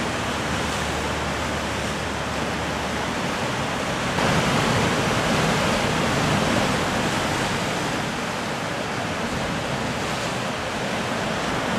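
Sea surf breaking and washing against a volcanic rock shoreline: a steady rushing that swells louder about four seconds in and eases a few seconds later.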